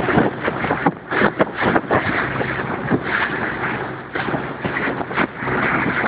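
A boat running across open water, with wind rushing over the microphone and frequent irregular knocks and splashes against the hull.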